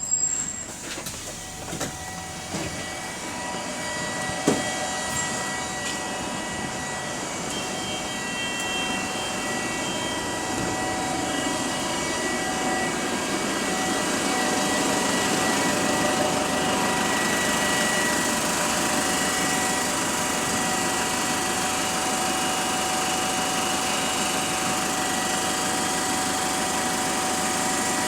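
A bus running with an odd steady whine made of several fixed high tones, over mechanical and road noise that slowly grows louder. A few clicks and one sharp knock come in the first five seconds.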